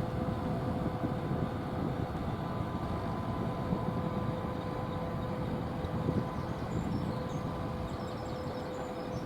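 Steady low rumble with a constant mechanical hum from a large cruise ship's machinery as she passes close by.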